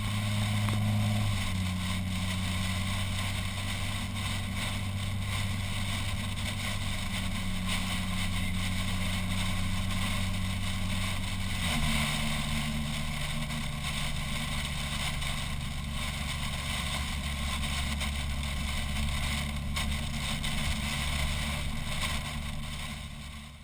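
Car driving at a steady speed, heard from inside: an even engine and road drone with wind noise. Its pitch steps to a new level about a second in and again about halfway through.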